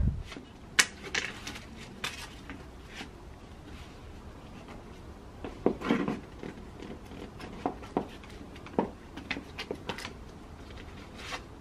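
Scattered rustles, taps and light knocks of snakeskin-print leather ankle boots being handled and pulled on, with a short cluster of knocks about six seconds in.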